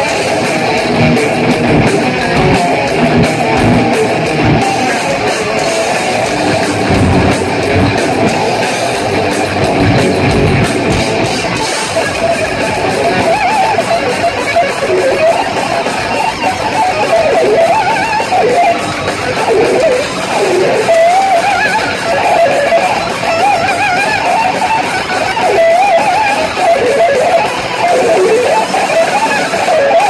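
A thrash metal band playing loud with distorted electric guitars. About twelve seconds in the low end thins out, and a wavering higher line runs over the rest. The music stops right at the end.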